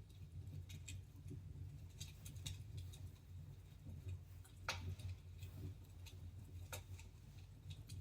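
Wood fire crackling in a fireplace: scattered, irregular pops and snaps over a steady low rumble, with one sharper pop a little past halfway.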